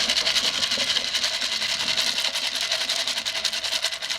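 Water running steadily through a sieve holding maize kernels, wetting the grain: an even, splashy hiss.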